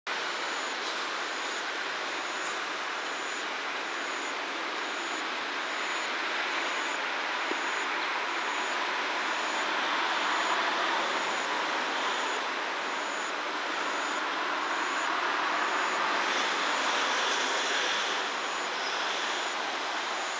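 JNR Class 443 electric test car rolling slowly through a rail yard, heard from far off as a steady hiss that swells slightly about halfway in and again near the end. A faint high-pitched beep repeats a little over once a second.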